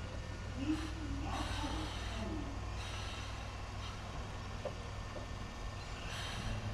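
Electric train standing at a station platform: a steady low hum, broken by a few short bursts of hiss. Faint voices can be heard early on.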